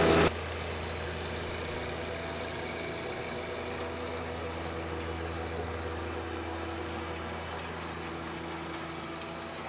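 John Deere 1025R compact tractor's three-cylinder diesel running steadily with a low, even hum while it drives a King Kutter rear tiller through hard clay.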